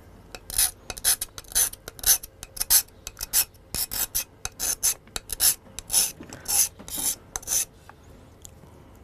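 Quick, uneven rasping scrapes, about three a second, from hand craft work on jewellery materials. They start about half a second in and stop about a second before the end.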